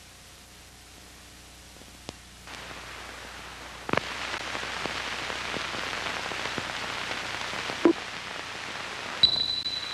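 Steady hiss with scattered crackles and pops from an old film soundtrack. The hiss gets louder in two steps, about two and a half and four seconds in, and a short high tone sounds near the end.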